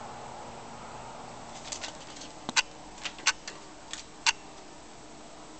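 A tortoiseshell cat's paws and claws tapping and clicking on a computer desk as she walks across it: about seven sharp clicks over two and a half seconds, starting near the middle, over a faint steady hum.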